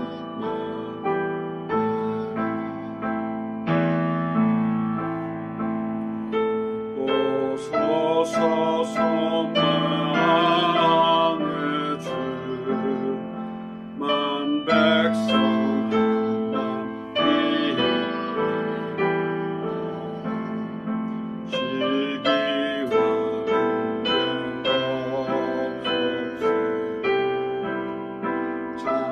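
A slow hymn tune with held chords that change every second or so.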